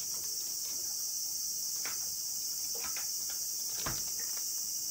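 Steady high-pitched insect chorus, with a few light knocks and a louder thump just under four seconds in.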